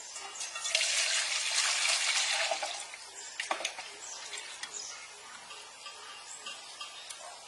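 Water poured from a plastic scoop into a stainless steel bowl of greens, a steady splashing pour for about two seconds starting just under a second in, followed by lighter splashes as the greens are swished in the water.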